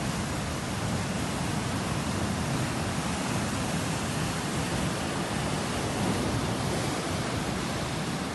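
Ocean surf breaking against a rocky shore: a steady rush of water with no distinct pauses.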